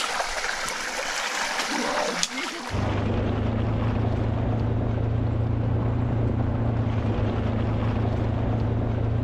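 Stream water running over rocks; about three seconds in, a steady low electrical hum switches on abruptly and carries on over the water sound.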